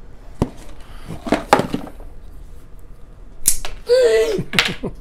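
A cardboard parcel set down on a stone tabletop and a folding knife handled and opened: a few sharp knocks and clicks. A short wordless vocal sound follows near the end.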